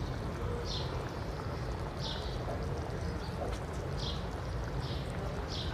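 A metal spoon stirring mustard-sauce hilsa curry as it simmers in a clay pot, with a short scrape about every second over a steady low noise.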